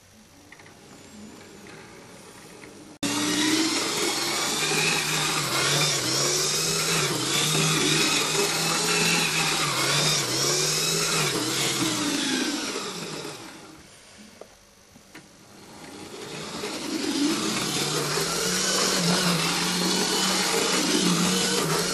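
Lima OO-gauge model HST power car running round the track, its small electric motor and wheels giving a loud whirring whine whose pitch wavers. It starts abruptly about three seconds in, fades away around the middle, then swells back up.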